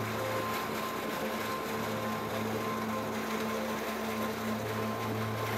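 Steady hum of a bulk carrier's onboard machinery heard close alongside the hull: a constant low drone with a few steady higher tones over an even hiss.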